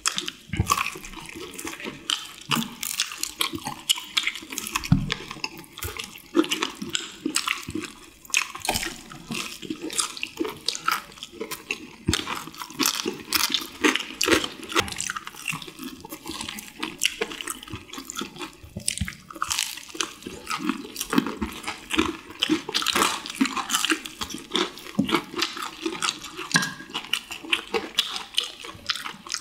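People chewing and crunching fried chicken close to the microphone: a dense, unbroken run of crisp crunches and wet mouth sounds.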